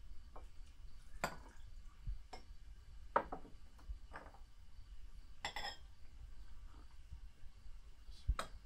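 Cutlery and dishes clinking during a meal: a handful of separate light clinks and knocks, spread out over several seconds.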